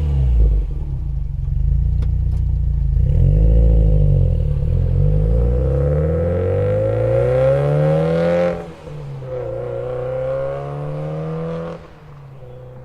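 Subaru WRX STI's turbocharged flat-four exhaust through an HKS aftermarket muffler, the engine note rising and falling with throttle as the car is driven, climbing to a peak about eight seconds in and then dropping sharply. A steadier, lower note follows and fades near the end.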